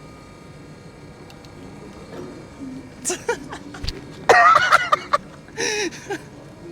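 Train door closing: a few knocks and a thud, then a loud wavering tone for about a second, with a shorter sound after it.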